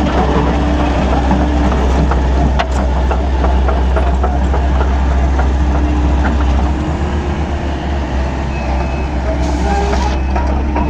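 Excavator running under load: a steady heavy diesel rumble with scattered metallic clicks and clanks from the machine working.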